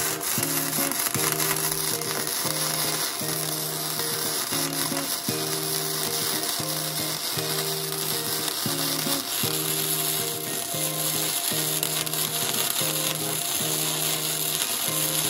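Wire-feed MIG welding arc crackling and sizzling steadily through a continuous bead, over background music.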